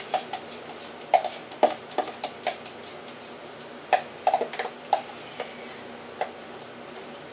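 Spoon scraping and knocking against the inside of a sour cream tub, scooping out the last of the sour cream: a dozen or so short, irregular clicks and knocks, some in quick runs.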